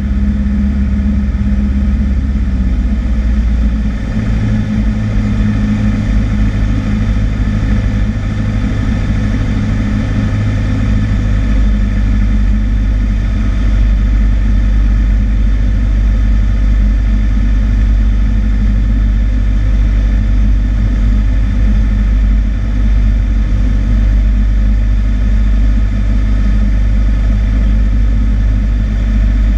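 Cessna 152's four-cylinder Lycoming engine and propeller droning steadily in cruise flight, heard from inside the cabin. The low note of the engine shifts about four seconds in, then holds steady.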